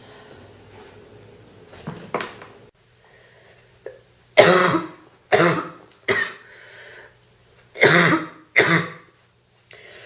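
A woman coughing in fits from a bad cold: a weaker cough about two seconds in, then a run of three loud coughs and, after a short pause, two more.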